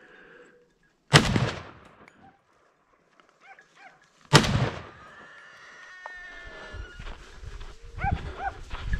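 Two gunshots from a hunting long gun, about three seconds apart, each a sharp crack with a short echoing tail. Short, high yelping animal calls come between and after the shots.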